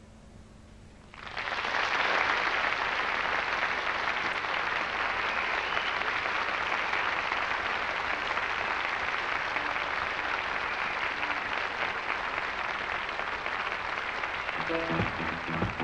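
Studio audience applauding, starting suddenly about a second in and holding steady. A band starts playing near the end.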